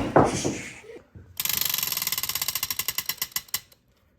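Prize wheel spinning: its pointer clicks rapidly against the pegs, slowing down until the wheel stops. A brief thump and rustle comes before it.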